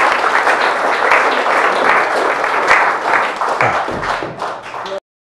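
Audience applauding: dense clapping that thins out after about three and a half seconds and cuts off suddenly near the end.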